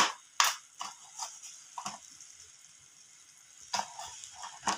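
Sharp clinks and knocks of kitchen utensils being handled, several in the first two seconds and two more near the end, over a faint steady hiss of grated radish frying in a steel kadhai.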